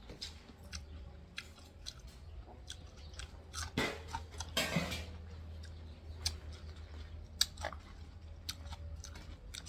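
A person chewing food, with scattered wet mouth clicks and smacks and a longer rustling smack about four to five seconds in.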